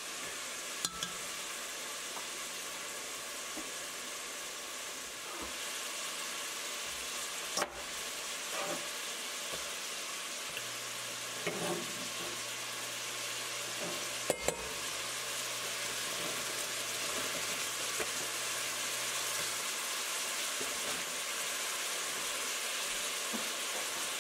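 Onions, bell peppers, celery and minced garlic sautéing in olive oil in a pot, a steady frying sizzle. A few sharp clicks sound over it, about three times.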